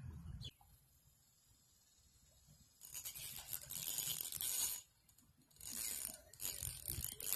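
Fishing reel being cranked in three raspy spurts, about three, five and a half and six and a half seconds in, as a hooked tilapia is reeled in on a bent rod.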